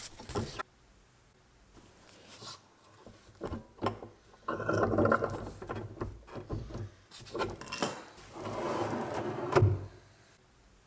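Blum Space Step plinth drawer being handled: scattered knocks from its feet and frame, two stretches of sliding on its runners, and a sharp knock near the end as it shuts.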